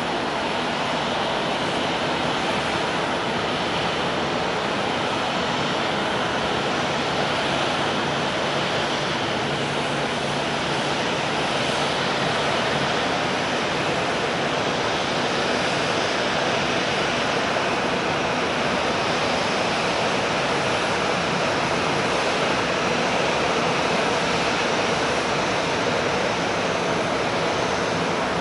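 Steady, even roar of jet airliner engines blended with the hiss of rain, holding level throughout without a clear pass-by rise or fall.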